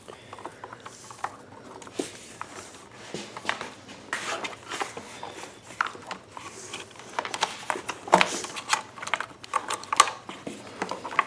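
Irregular small clicks, taps and rustling of plastic parts and wires being handled as a radio module is worked down into place inside a generator's plastic casing, busier in the second half.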